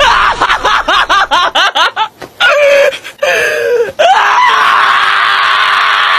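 A high-pitched voice yelping in quick laughing bursts, about six a second for two seconds, then a short cry and, from about four seconds in, one long held scream.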